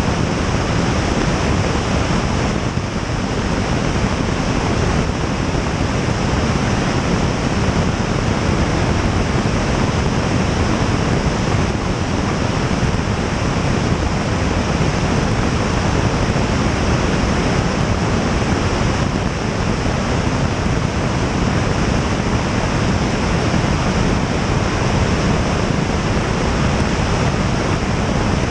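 Loud, steady rush of airflow buffeting a camera mounted outside on the tail of a Piper Tomahawk in flight, with no changes.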